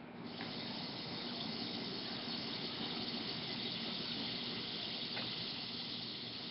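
Swedish pancake batter sizzling in a hot frying pan: a steady hiss that starts sharply just after the beginning and holds throughout.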